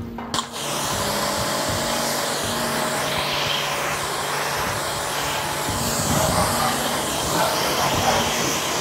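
Small pressure washer spraying water onto a car's bodywork: a steady hiss of the jet over the machine's motor, starting abruptly about half a second in.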